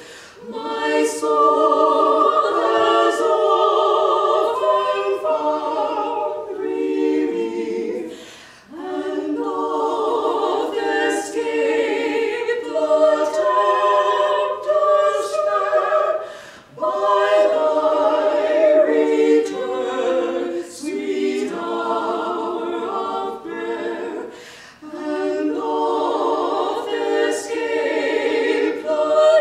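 Women's vocal quartet singing an early American song a cappella in close harmony, in long phrases of about eight seconds with brief breaths between them.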